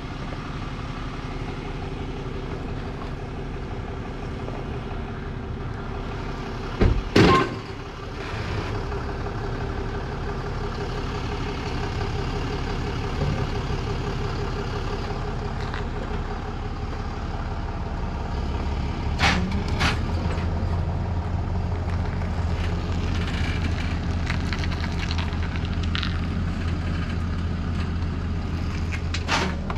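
Tow truck engine running steadily as the truck manoeuvres with a car lifted on its wheel lift and dollies, the engine note growing stronger and lower from about eighteen seconds in as it works harder. A loud sharp clunk about seven seconds in, and lighter knocks around nineteen to twenty seconds.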